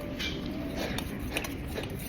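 Close-up eating sounds: an irregular run of small clicks and taps, as of chewing and utensils, over a low steady hum.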